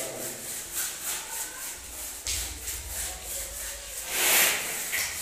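Steel hand trowel scraping over a wet cement floor in quick, repeated strokes, about three or four a second. About four seconds in there is a louder, longer rushing scrape.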